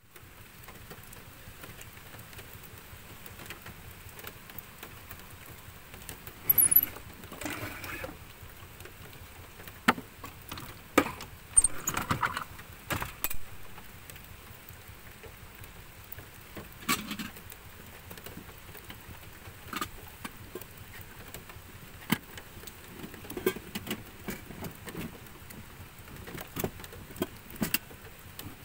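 Scattered light clicks, knocks and clinks of things being handled around a portable gas stove and moka pot, over a steady faint hiss.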